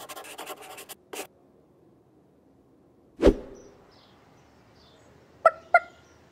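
Cartoon sound effects. A brief scratchy rasp plays over the first second, a single soft thud comes about three seconds in, and two short chicken-like clucks sound close together near the end.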